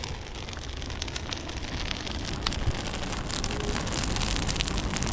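Open fire burning, with dense, continuous crackling and popping.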